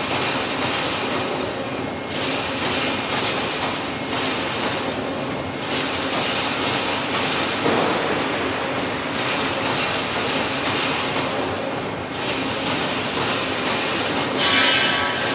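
Wire fence-making machine running in a factory: a dense metallic clatter over a steady hum, with the high part of the noise dropping away about every three and a half seconds as the machine goes through its cycle. A short metallic squeal comes near the end.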